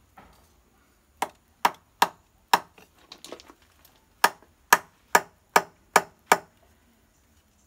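Sharp wooden knocks as the wooden handle of a coconut-shell spoon is struck. There are ten knocks in all, about two a second, in a run of four and then a run of six after a short pause.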